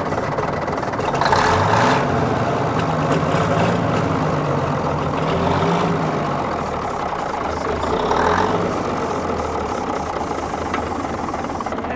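Cummins diesel engine of a 1966 Diamond REO dump truck running rough on ether sprayed into its intake, its speed rising and falling unevenly. The engine is not primed with fuel, so it is kept going only by the starting fluid.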